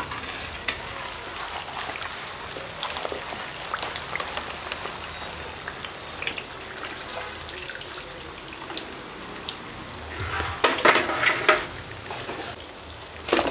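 Khasta kachoris deep-frying in a kadhai of hot oil, a steady sizzle with scattered crackles. About ten seconds in, a louder burst of crackling and metal clatter comes as the slotted ladle lifts them out of the oil.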